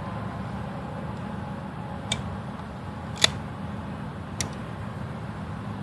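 Steady low rumble of background noise with three short, sharp clicks about a second apart, the middle one the loudest.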